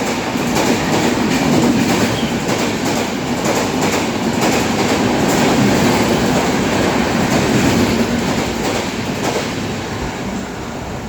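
Express passenger train passing at speed: a steady rush of wheels on rail with rapid clattering over rail joints, easing off slightly near the end.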